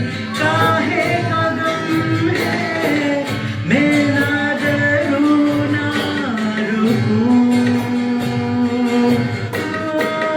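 Live worship band playing, with a voice singing long held notes that glide from pitch to pitch over the accompaniment and a steady beat.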